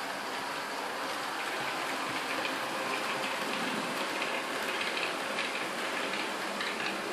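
HO-scale model freight train rolling along the layout's track: a steady rushing hiss of small metal wheels on rail, with faint rapid clicking from about two seconds in as the wheels pass over rail joints.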